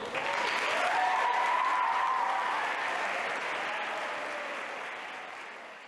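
Audience applause breaks out suddenly, is loudest within the first couple of seconds, then gradually dies away.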